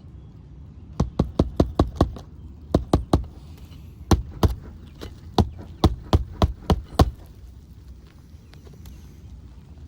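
Hammer blows driving roofing nails through a new asphalt shingle, in quick runs of strikes with short pauses between runs, stopping about seven seconds in.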